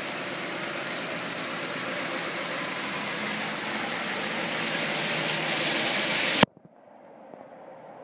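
Floodwater rushing in a steady, even noise that grows slowly louder, then cuts off abruptly with a click about six and a half seconds in, leaving a much quieter hiss.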